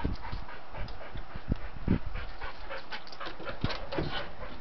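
A dog panting in quick, short breaths, with a few low thumps.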